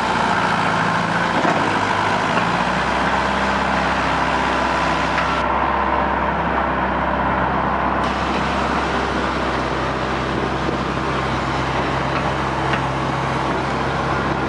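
Diesel engines of heavy construction machinery running steadily. The low engine note shifts about two and a half seconds in.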